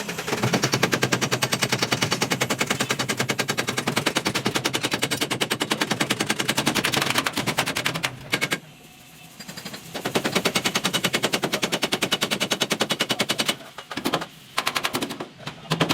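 Pneumatic air hammer on car body metal, a fast steady rattle of blows. It runs for several seconds, stops briefly, runs again, then goes in short bursts near the end.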